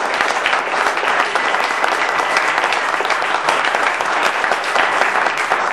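An audience applauding, many people clapping at once.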